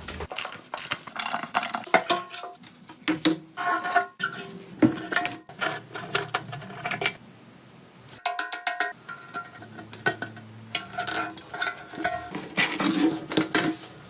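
Irregular metallic clinks and clatters of tools and small metal parts being handled and set down, some ringing briefly.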